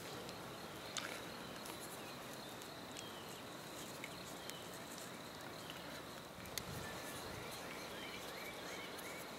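Faint outdoor background of bird chirps, with a quick run of them near the end, over a steady high insect buzz. Two small clicks, about a second in and again past the middle, as a plastic drip-line end cap is worked onto half-inch poly tubing.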